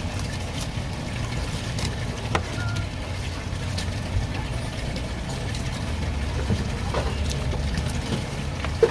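A steady low mechanical rumble, with a few short sharp knocks scattered through it.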